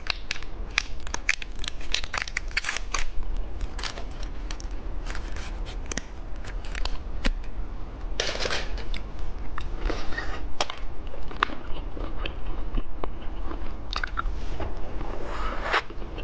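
Close-miked eating of candy: a rapid series of sharp crackles and crunches, with a few longer stretches of plastic wrapper crinkling partway through.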